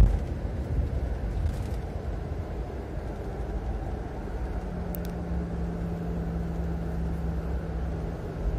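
Coach bus driving, heard from inside the passenger cabin: a steady low rumble of engine and road noise, with a steady hum joining about halfway through and a brief click near the middle.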